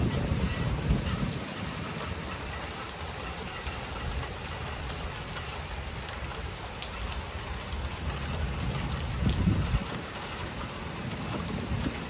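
Rain pouring down steadily in a summer storm, with low rumbles swelling near the start and again about nine seconds in.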